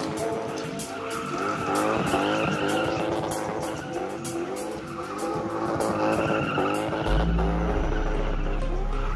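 Toyota AE86 Trueno doing donuts, its engine revving up and falling back again and again while the rear tyres skid and squeal on the asphalt. Music with a deep bass comes in about seven seconds in.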